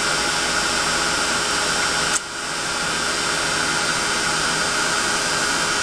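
Embossing heat tool blowing a steady hot-air rush, melting Distress embossing powder on card stock, with a brief dip in the sound about two seconds in.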